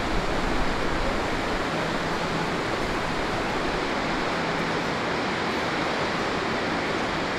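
Steady rush of white water in a boulder-strewn mountain stream. A deeper rumble underneath fades out about a second and a half in.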